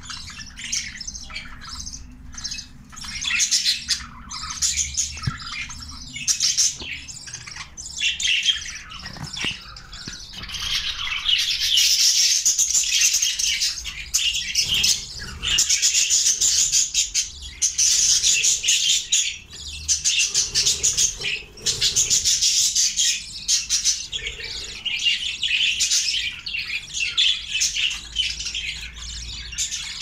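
Budgerigars chattering and chirping: a dense run of quick, high calls that grows louder about ten seconds in.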